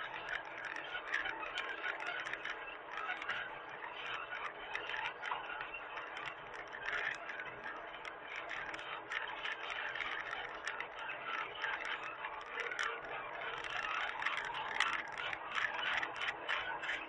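Hitachi mini excavator at work: dense, irregular clattering and scraping over a faint steady engine hum.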